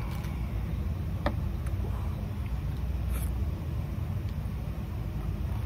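Steady low background rumble, with a sharp click a little over a second in and a brief hiss about three seconds in.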